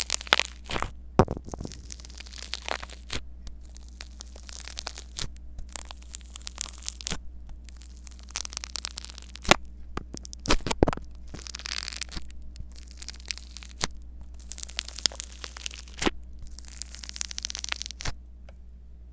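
Close-miked crackling and crunching of polystyrene foam beads squeezed and pushed around by fingers against a small microphone, with many sharp irregular clicks. A steady low hum runs underneath.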